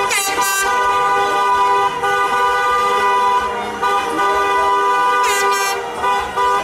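Car horn held down in celebratory honking, a steady blaring two-tone note with only brief dips. A short high falling squeal sounds near the start and again a little after five seconds in.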